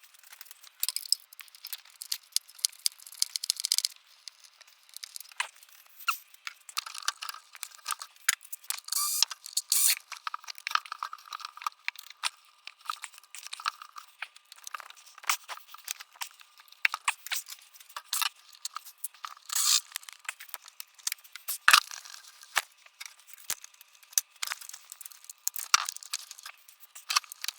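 Irregular clicks, scrapes and plastic crinkling as a car's engine air box and its intake hose are worked loose and pulled out by hand.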